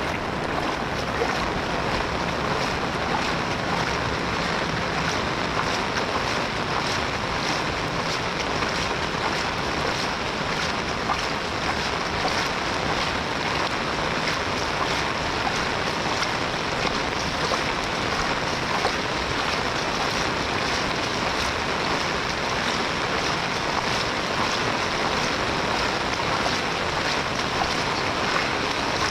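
Steady heavy rain falling: a dense, even hiss with fine drop ticks through it.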